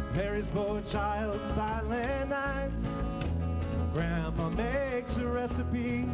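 Small band playing a country-rock Christmas song live: a man singing over acoustic guitar, electric upright bass and drums with a steady beat.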